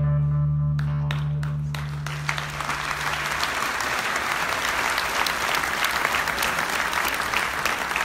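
A large audience applauding. Scattered claps begin about a second in and thicken into steady clapping, while a held low chord from the closing music dies away after about three seconds.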